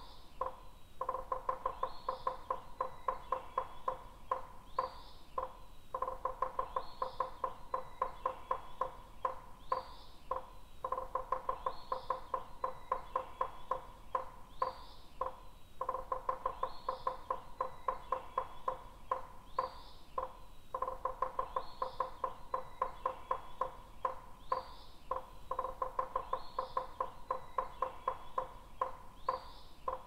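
Woodpecker pecking wood in rapid, evenly spaced runs of taps, each run about four seconds long with short pauses between them. Short high bird chirps sound over the tapping about every second and a half.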